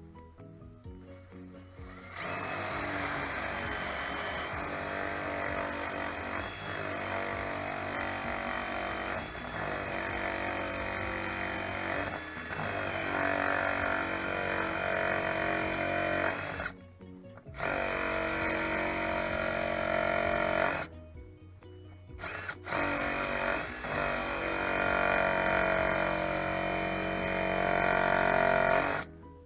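Electric drill running in long bursts as it bores a hole, stopping briefly twice in the later part; background music plays underneath.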